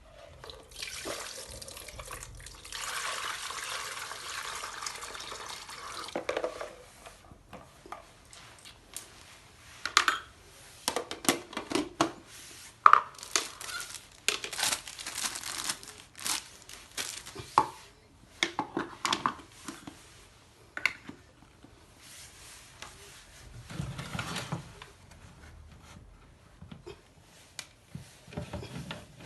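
Water pouring and splashing in a 3-litre water fountain: a steady pour for about five seconds, then scattered splashes and sharp clicks.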